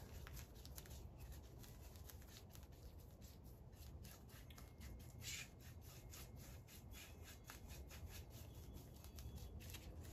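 Faint rubbing strokes of a paintbrush spreading varnish on an oak pallet board, over a low steady room hum.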